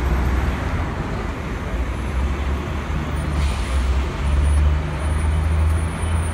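Street traffic dominated by the low, steady diesel drone of a New Flyer D60HF articulated bus, with a short hiss about three and a half seconds in.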